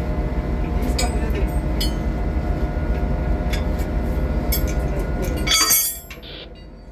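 Metal spanner clinking on the bolts of a bunker hose flange as the nuts are tightened, over a loud steady drone of heavy machinery. The drone drops away abruptly near the end.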